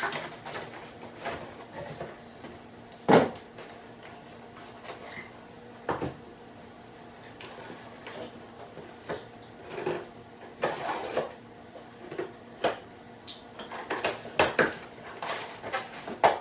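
Irregular handling noise from unboxing new tools: scattered knocks, clicks and short rustles of packaging and items being picked up and set down, the loudest a sharp knock about three seconds in, over a faint steady hum.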